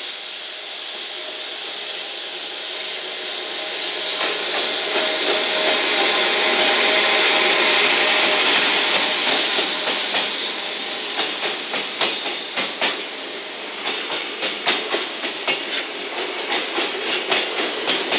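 EF210 electric freight locomotive passing close by, its running noise and a steady motor tone swelling to a peak about halfway through. Then loaded container flat wagons roll past with a regular clickety-clack of wheels over rail joints.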